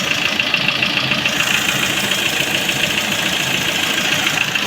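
Lada Priora's 16-valve four-cylinder engine idling with a fast, even ticking-knocking noise. The noise persists after two new camshafts and repaired hydraulic lifters, and stays the same with each spark plug disconnected in turn, which the owner takes to mean the pistons are not the cause.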